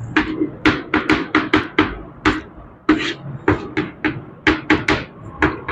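Chalk writing on a blackboard: a quick, uneven run of short taps and scrapes as letters are written, with a brief pause about halfway through.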